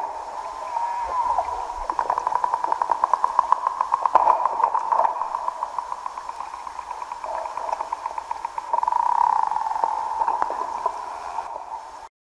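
Bottlenose dolphin vocalizing underwater close to the microphone: whistles mixed with rapid trains of clicks, the densest click train about two to five seconds in. The sound cuts off abruptly just before the end.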